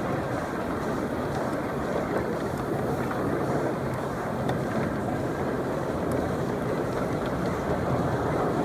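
Wheels of a 1-inch-scale ride-on miniature railway car rolling along the track: a steady rumbling noise with light clicks.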